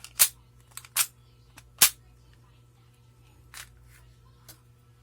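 Sharp mechanical clicks from an airsoft Glock 18 gas blowback pistol being handled: three loud clicks in the first two seconds, then a few softer ones.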